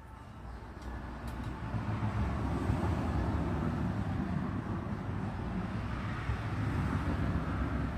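A low, steady rumbling noise with no distinct tones, swelling over the first two seconds and then holding.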